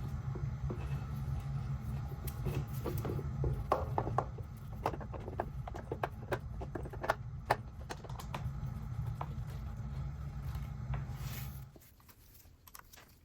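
Scattered light metallic clicks and taps of hand tools and fasteners as a motorcycle starter motor is refitted, over a steady low hum that cuts off near the end.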